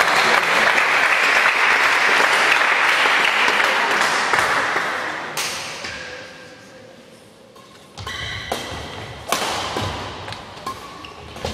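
Audience applause in a sports hall, fading out over the first several seconds. After a short quiet, a badminton rally begins about 8 seconds in: sharp racket hits on the shuttlecock, with short squeaks of shoes on the court floor.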